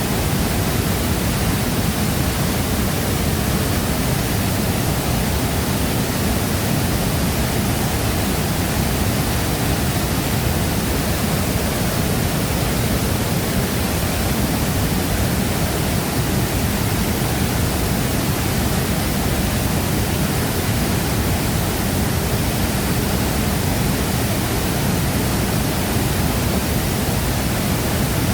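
Large waterfall pouring into its plunge pool: a loud, steady rush of falling water, strongest in the low end, with no change or breaks.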